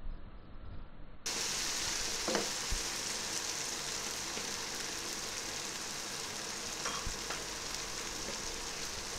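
Chicken in curry paste frying in hot oil in a nonstick pan: a steady sizzle that starts abruptly about a second in.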